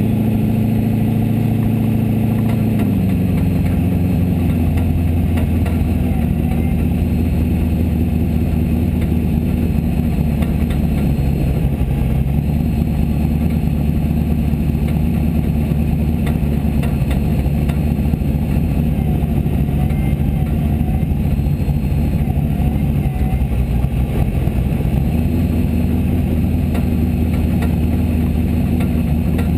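Formula Offroad buggy's engine heard from inside the cockpit, running at low revs while the car rolls slowly. Its pitch drops a few seconds in, drops again about eleven seconds in, and rises near the end.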